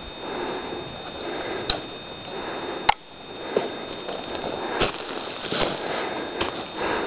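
Footsteps on a forest floor of leaf litter and twigs, with irregular cracks and clicks; the sharpest comes about three seconds in.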